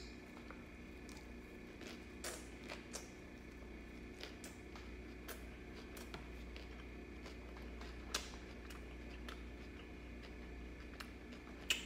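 Someone eating a lettuce salad: quiet chewing and scattered clicks of a fork against a plastic takeout container, two of them louder, over a steady low hum.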